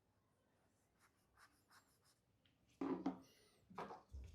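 Faint scratching and a short high squeak of a marker pen on the scooter hub motor's rotor magnets, marking the weak ones that have lost their magnetism from welding heat. A soft low knock comes near the end.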